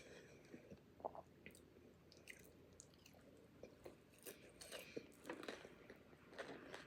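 A person chewing food close to the microphone, with soft, irregular wet smacks and clicks that come thicker about two-thirds of the way through.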